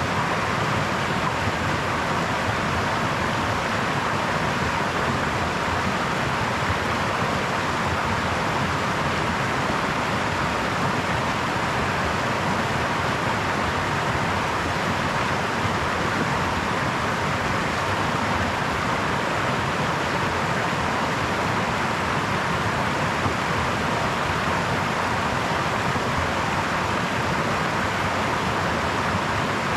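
Small brook babbling over stones: a steady, even rush of flowing water with no breaks or changes.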